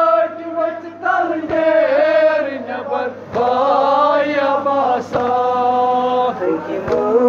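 Male voice chanting a noha, a Shia mourning lament, in long, wavering held notes, phrase after phrase with short breaks between.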